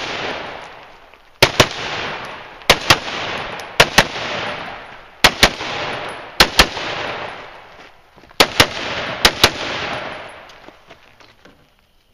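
AR-15 rifle fired in quick pairs of shots, about seven pairs with pauses between them, each shot followed by echo off the range.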